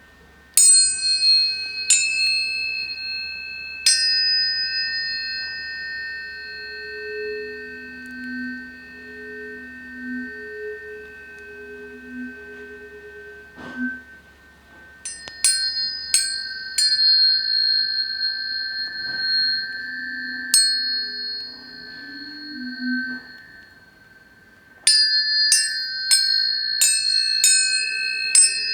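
Tuning forks struck again and again, each strike leaving clear high ringing tones that hold and slowly fade. Three strikes come early, a quick cluster about midway, and a rapid run of strikes near the end.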